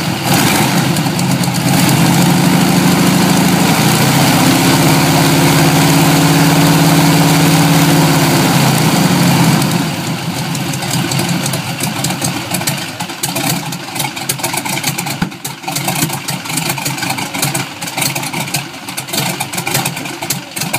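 Jacobs radial aircraft engine turning a propeller on a test stand, running hard at high, takeoff-type rpm with a steady pitch that steps up about two seconds in. Around eight to nine seconds in it is throttled back and its pitch slides down as it winds down, leaving a quieter, uneven noise for the rest.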